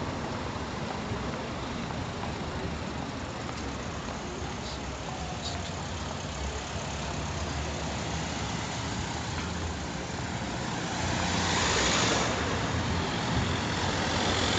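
Cars driving along a town street, a steady traffic hum that swells louder for a couple of seconds near the end as a car goes by close.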